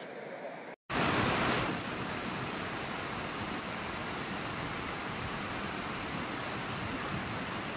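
Steady rushing noise of a swollen, muddy river in flood with rain falling. It cuts out briefly just under a second in, then comes back louder for about a second before settling.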